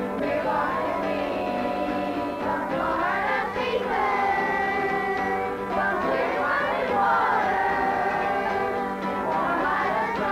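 A group of children singing together in unison, accompanied by a strummed acoustic guitar.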